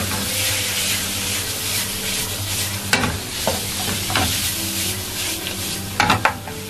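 Raw prawns sizzling in hot coconut oil in a non-stick frying pan, stirred with a wooden spatula. The sizzle is steady, with a sharp knock of the spatula against the pan about three seconds in and a quick cluster of knocks near the end.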